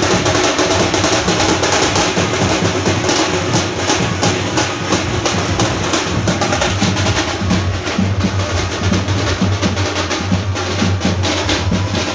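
Teenmaar drumming: a group of dappu frame drums beaten with sticks in a fast, loud rhythm of many strokes a second.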